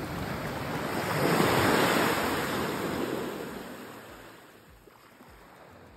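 Surf washing up a beach: a single rush of wave noise that swells over about two seconds, then fades away as the water draws back.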